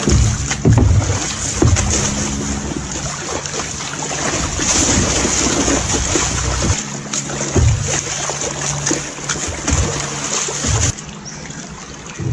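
Water splashing and sloshing continuously as a black bear thrashes about in a round plastic tub of water, with repeated heavy surges of water.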